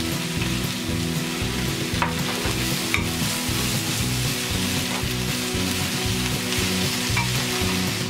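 Cabbage and onion sizzling as they stir-fry in a hot nonstick wok, a steady hiss, with a wooden spoon stirring and knocking against the pan a few times.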